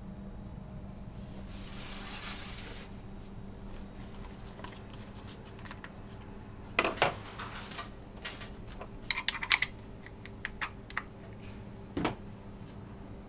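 A compressed-air pastry spray gun being handled and its air hose coupled: sharp plastic and metal clicks and knocks in small clusters, after a short hiss of about a second near the start. A steady low hum runs underneath.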